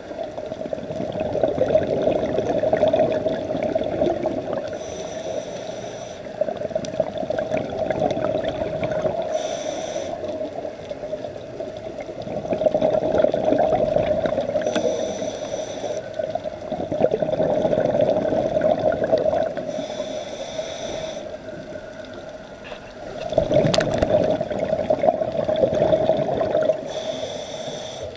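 Scuba diver breathing through a regulator underwater. Short hissing inhalations alternate with longer rushes of exhaled bubbles, about one breath every five seconds.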